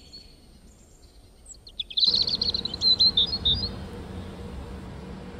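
Bird chirping: a quick run of rapid high chirps about two seconds in, then a few louder separate notes.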